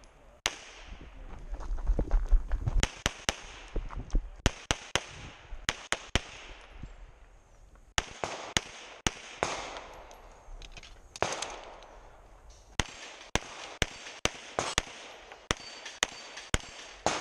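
Atlas Titan 9mm competition pistol fired in quick strings of two to four shots, with short pauses between strings, around two dozen shots in all.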